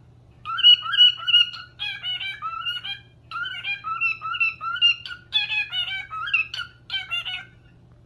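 Cockatiel whistling a warbling song in a run of short, pitched, tune-like phrases, each under a second long, with a brief pause at the start and another near the end.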